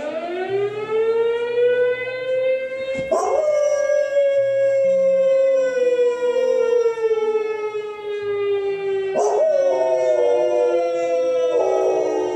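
German Shepherd howling: three long drawn-out howls. The first rises quickly in pitch and then slowly sinks. The others follow after short breaths about three and nine seconds in.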